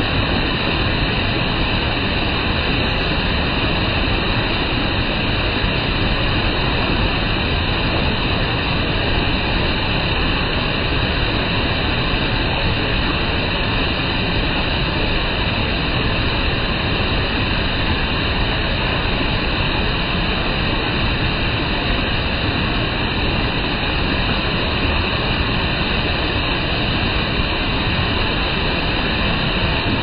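Large waterfall pouring into its plunge pool: a loud, steady, even rush of falling water that does not change.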